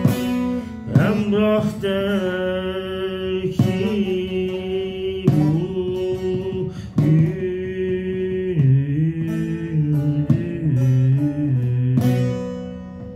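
A man singing with long, wavering held notes, accompanied by a plucked round-bodied lute; a few sharp plucked notes open before the voice comes in about a second in.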